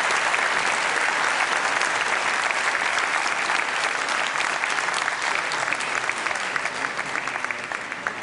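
Audience applauding, many hands clapping, the applause slowly dying down toward the end.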